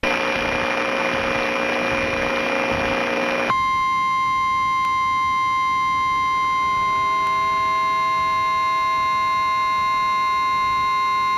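Synthesized emergency-alert tones: a harsh buzzing noise with a few steady tones for about three and a half seconds, then an abrupt switch to a single steady, high alarm tone with several overtones, the NOAA Weather Radio warning alarm tone.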